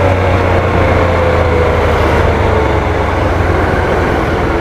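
Motorcycle engine running steadily under way, its pitch sinking slowly.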